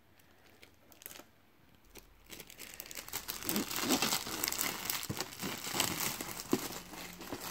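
Cellophane shrink wrap crinkling and tearing as it is pulled off a cardboard box. It starts as a dense crackle about two and a half seconds in, after a near-quiet start.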